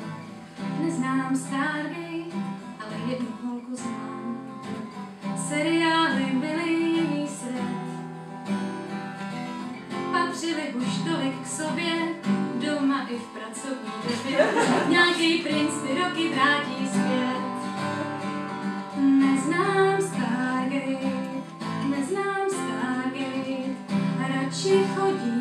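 Solo acoustic guitar strumming and picking chords: an instrumental passage between sung verses of a song.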